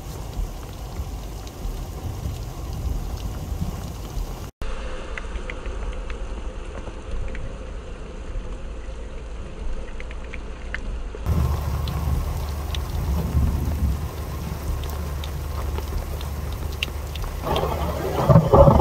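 Heavy rain pouring down: a steady hiss of rainfall with scattered drop ticks, its character changing at two cuts. In the later part a low rumble of thunder runs under the rain, with a louder burst near the end.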